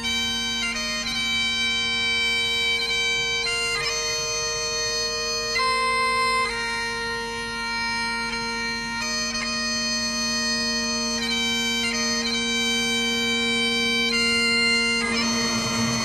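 Bagpipe music: a steady drone held beneath a melody that moves from note to note.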